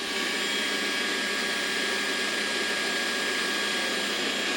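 Trifo Ollie robot vacuum running, a steady whir of its suction fan at what the owner thinks is less than full power.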